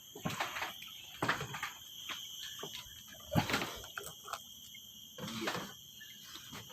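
Steady high-pitched insect chorus, crickets or similar, with several short knocks and rustles of handling; the loudest knock comes about halfway through.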